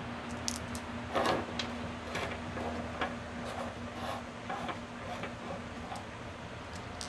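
Small tumbled and raw crystal stones clicking and clacking against each other and being set down on a tabletop: a string of light, irregular knocks, loudest about a second in. A steady low hum runs underneath.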